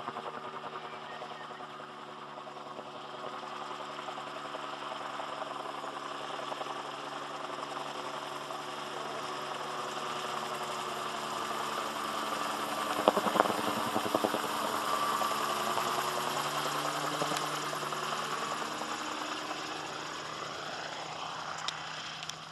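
Sportcopter Lightning gyrocopter flying overhead: steady engine drone that builds to its loudest about 13 seconds in, with a brief rapid beating as it passes closest, then fades and shifts in pitch as it moves away.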